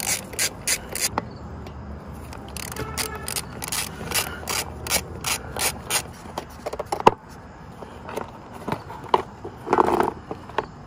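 Hand ratchet with a hex bit clicking in quick runs, about three or four clicks a second, as bolts on a motorcycle's plastic lower front cowl are turned out. A single sharp knock comes about seven seconds in, and near the end the loosened plastic cowl rubs as it is pulled free.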